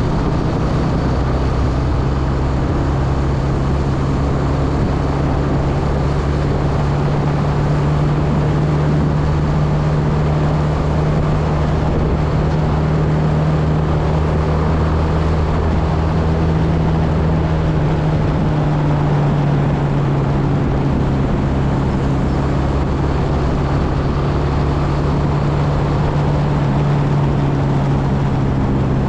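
Motorcycle engine running steadily at cruising speed: a continuous low hum with rushing road and wind noise over it.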